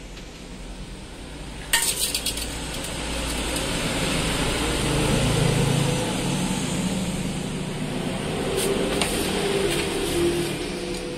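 Metal tool clinks from a T-handle socket wrench and bolts on a scooter's front fork: one sharp clank with a quick rattle about two seconds in and a few lighter clinks near the end, over a steady rushing noise.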